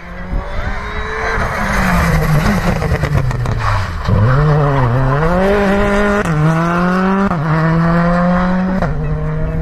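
Rally car engine at high revs through a tight hairpin. The revs dip low through the turn, with some tyre noise, then climb hard as the car accelerates away, with three quick upshifts, each a sudden drop in pitch.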